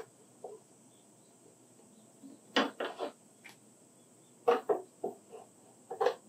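Light knocks and clicks as a metal concealed hinge and a steel square are handled and set against a wooden cabinet door. They come in three quick clusters: a few seconds in, again about four and a half seconds in, and near the end.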